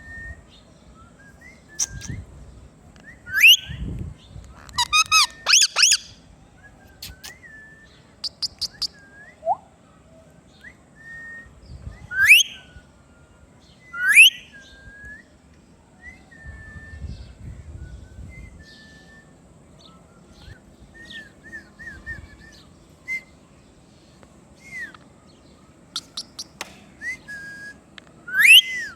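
Ringneck parrot calling: short whistled chirps and four loud rising squawks, with a quick run of chattering calls about five seconds in.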